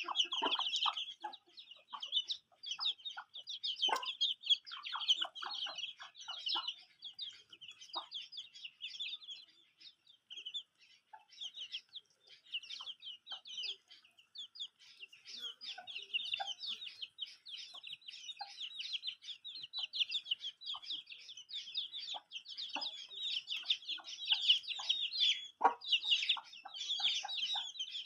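A flock of chicks peeping in a continuous high chatter, with a hen giving short clucks every so often.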